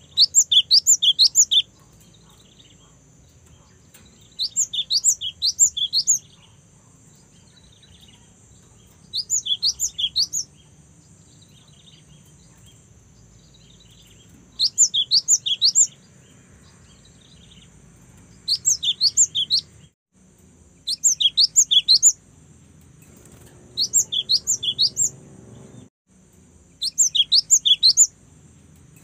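A young cinereous tit (gelatik batu) singing in bursts: about eight short, fast runs of eight to ten sharp, high notes, each run lasting a second or so, with a few seconds' pause between runs.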